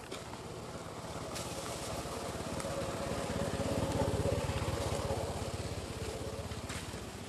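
A motor vehicle's engine passing by. It grows louder to a peak about four seconds in, then fades away.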